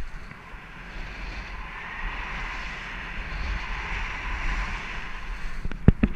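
Snowboard sliding over firm, rough groomed snow: a steady scraping hiss, with wind rumbling on the microphone and a few sharp knocks near the end.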